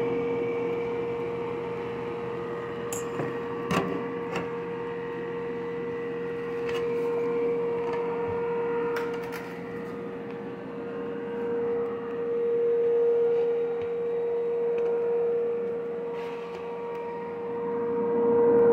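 Over-the-stove microwave vent fan motor spinning a 3D-printed blower impeller, a steady hum with air rushing through the hose. A few light clicks sound over it.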